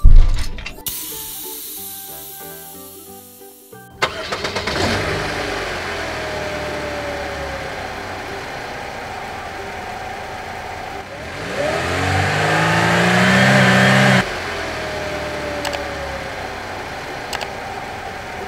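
A truck engine sound effect starts abruptly about four seconds in, after a thump and a short run of musical notes that fade away. The engine runs steadily, then climbs in pitch and loudness for about three seconds as it revs up, drops off sharply, and carries on running.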